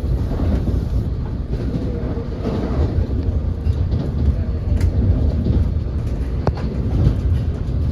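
Passenger train running along the track, heard from inside the car: a steady low rumble of wheels on rail with a few sharp clicks.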